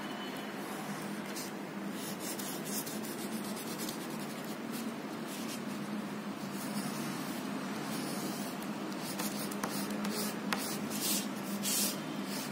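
Red crayon rubbing and scratching on paper in quick, irregular shading strokes, over a steady low hum.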